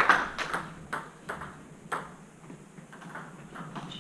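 Table tennis ball bouncing, a handful of sharp, irregularly spaced clicks, as a player readies to serve. A louder noise fades out in the first half-second.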